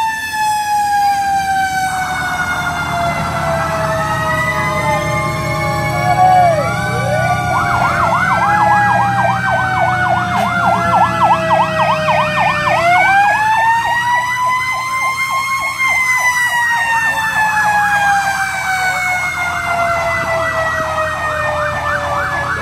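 Fire truck sirens overlapping: a long wail winding slowly down, joined about a third of the way in by a fast warbling yelp; a little past halfway a wail sweeps up and then winds down again. The trucks' engines rumble underneath.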